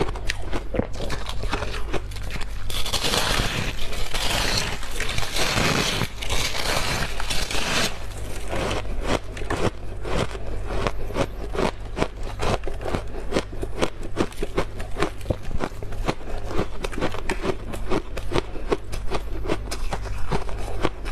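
Freezer frost being crunched and chewed, a constant run of crisp crunches. From about three to eight seconds in, the crunching turns into a dense, continuous scraping.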